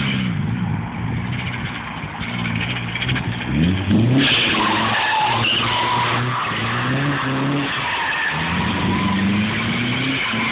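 Nissan S13 drifting: its engine revs up and down while the tyres screech, with a steady squeal under the noise. The noise jumps suddenly louder about four seconds in, as the revs climb.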